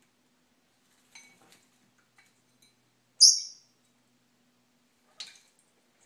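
Senegal parrot giving one loud, short, high-pitched call about three seconds in, with a few faint clicks around it and another sharp sound near the end.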